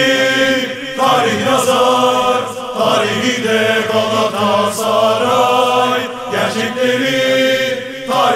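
Background music: a song carried by many voices chanting together in unison.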